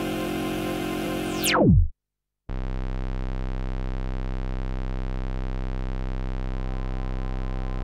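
Electronic intro music ends in a fast downward pitch sweep and cuts off. After about half a second of silence, a steady low synthesizer drone rich in overtones starts and holds unchanged.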